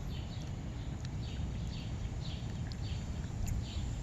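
A bird calling over and over, short falling chirps about two a second, over a steady low outdoor rumble.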